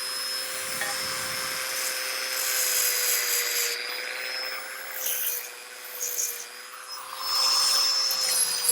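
Electric power tool cutting notches in steel: a steady motor whine under a rough grinding hiss that swells as the tool bites and eases between cuts, loudest near the middle and again near the end.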